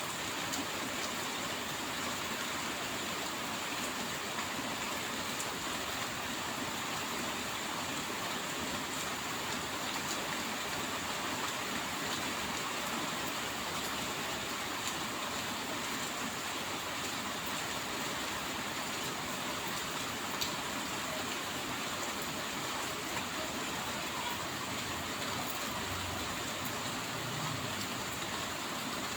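Steady, even rain hiss, with faint scattered drop ticks.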